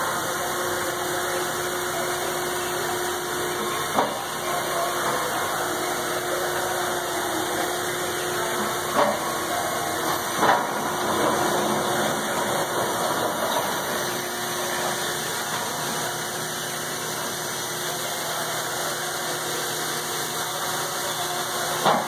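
Steady mechanical hum and hiss of running shop machinery, broken by a few short sharp knocks.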